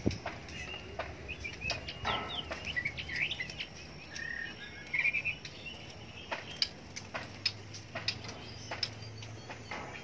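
Caged white-rumped shamas (murai batu) giving short chirps and trills, mostly around the middle, among frequent sharp taps and wing flutters of birds moving about in wire cages.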